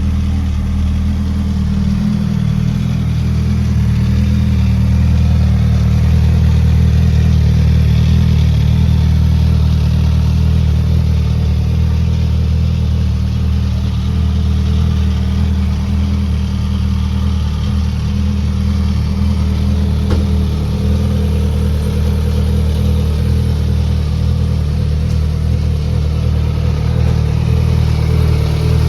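2022 Suzuki GSX-S1000's inline four-cylinder engine running steadily at idle through its stock exhaust, a deep, even note with little change in pitch.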